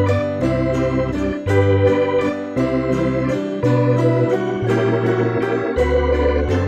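Background music: held keyboard chords over a bass line that changes note about once a second, with a steady beat.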